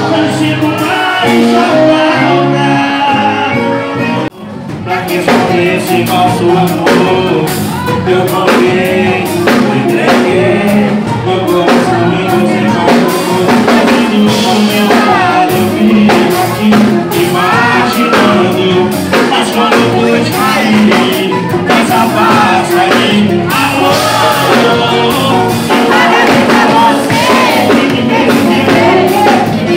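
Loud music with a singing voice over a steady beat, with a brief drop in level about four seconds in.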